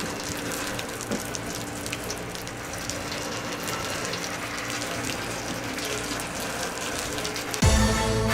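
Steady rain, an even hiss with scattered small patters. Near the end, music with strings comes in over it.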